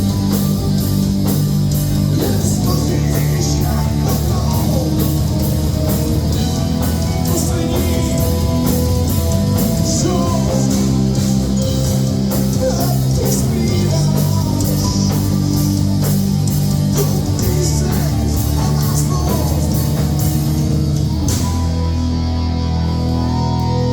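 Rock band playing live at full volume: electric guitars and a drum kit with steady cymbal hits, and singing.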